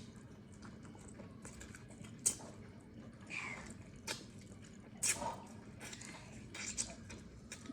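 Close-up eating sounds: chewing and wet mouth smacks while eating eba with spinach vegetable soup, with sharp smacks about two, five and seven seconds in.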